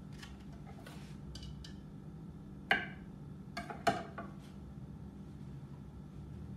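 Sharp clicks and knocks of a kitchen knife against a wooden cutting board and a mixing bowl while hard-boiled eggs are halved and the yolks scooped out. The two loudest knocks come a little before three seconds in and about four seconds in, over a low steady hum.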